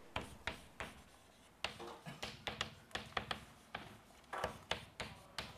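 Chalk writing on a chalkboard: a run of short, irregular taps and scratches as the letters are stroked on, with a brief pause about a second in.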